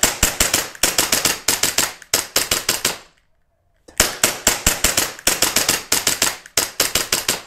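Airsoft Glock 19 blowback pistol fired as fast as a finger can pull the trigger: a rapid string of sharp cracks, several a second. The string breaks off for about a second near the middle, then runs on until the magazine is emptied.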